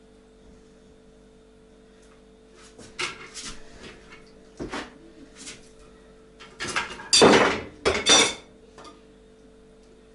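Bricks and a hand tool clinking and scraping on a brick stove as its top courses are laid. The sound comes in scattered knocks and short scrapes, with the loudest, longest scrapes in the second half.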